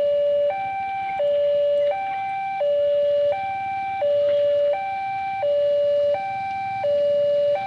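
Railway level crossing's electronic warning alarm sounding from its loudspeaker: two tones alternating high and low, each held about 0.7 s, the lower one louder. It is the signal that the barriers are down for a train.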